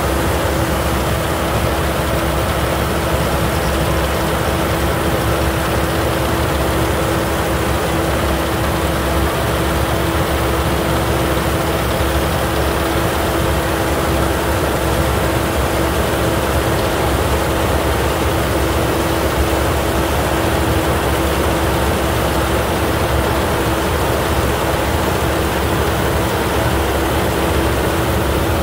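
Yanmar YH6115 combine harvester running steadily while cutting and threshing rice. Its diesel engine and threshing machinery make an even, unbroken drone with a constant hum.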